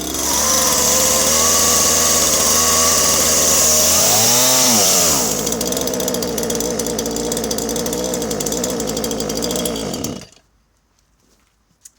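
Husqvarna 137 two-stroke chainsaw engine running. Its speed swells up and falls back about four seconds in, then it runs on at a lower, unsteady speed before cutting off suddenly near ten seconds. The owner calls the running dreadful and very strange, either rich or hunting.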